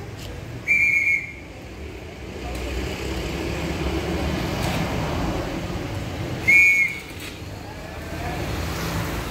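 A whistle blown twice in short, high-pitched blasts, about six seconds apart, over steady low background noise.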